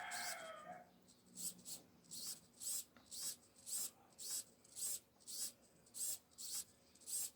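SG90 micro servo's plastic gear train whirring in short scratchy bursts, about two a second, as it swings back and forth under joystick control. A brief pitched call fades out in the first second.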